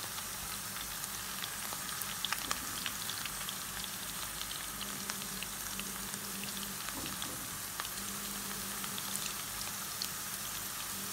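Chicken breast pieces shallow-frying in hot coconut oil in a pan, freshly flipped to the second side: a steady sizzle full of small crackles and pops, with a few sharper pops about two seconds in.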